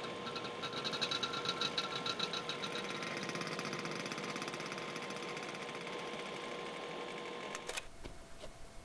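Film projector running: a rapid, even mechanical clatter with a faint steady hum, stopping about a second before the end.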